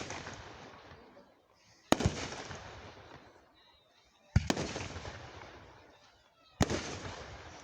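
Aerial fireworks shells bursting overhead: three sharp booms about two seconds apart, each followed by a rumbling echo that fades away.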